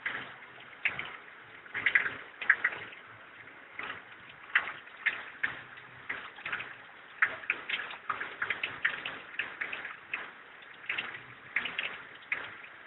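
Irregular sharp clicks and light taps of small hard objects, several a second and sometimes in quick clusters.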